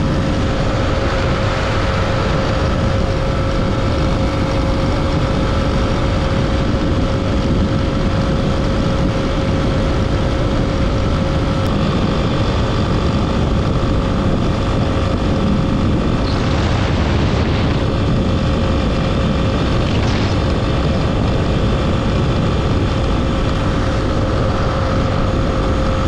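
Honda XR250 Tornado's single-cylinder engine running at a steady cruising speed, with heavy wind and road noise.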